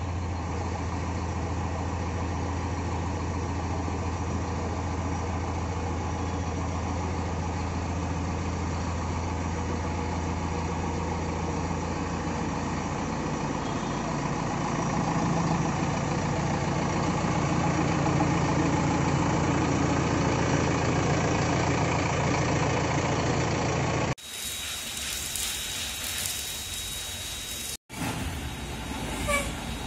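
JCB 3DX backhoe loader's diesel engine idling steadily, its note changing about halfway and growing a little louder. Near the end, after a cut, a different engine runs with a faint thin high whine.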